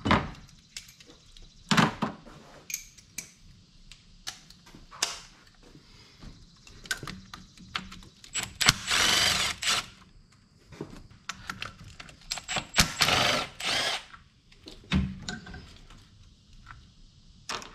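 Cordless electric ratchet running twice, about a second and a half each time, as it backs out a bolt on a wiring harness block, with clicks and knocks of tools and parts being handled between the runs.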